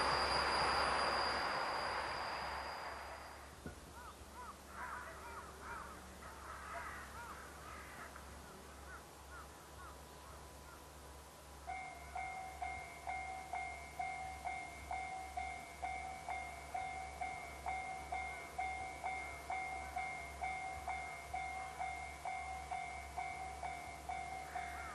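A train's running noise fades away over the first few seconds, followed by a few bird calls. About halfway through, a Japanese level-crossing warning bell starts: an electronic ding repeating steadily about one and a half times a second, the sign that a train is approaching the crossing.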